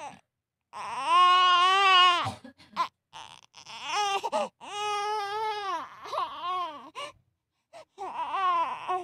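Baby crying in a run of wavering cries, the first the longest and loudest, then several shorter ones. Fussy teething cries, which the mother takes to be from sore gums.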